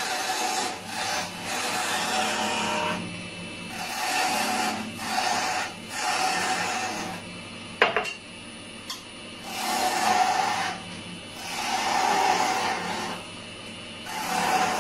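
Wood lathe turning a wooden blank while a turning tool cuts into it, the cutting noise coming in rough scraping passes of one to three seconds over the steady hum of the lathe. One sharp click about eight seconds in.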